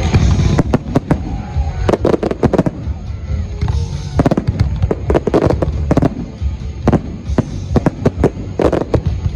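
Fireworks going off in quick succession, many sharp bangs, some in tight clusters, over music with a steady low bass.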